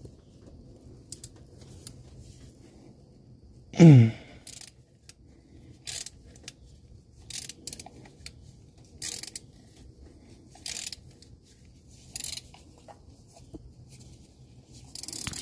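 Hand ratchet on a spark plug socket being worked in strokes about every second and a half, each back-swing a short burst of clicks, as a firm but not seized spark plug is loosened by hand. About four seconds in there is one loud, short sound that drops in pitch, the loudest thing here.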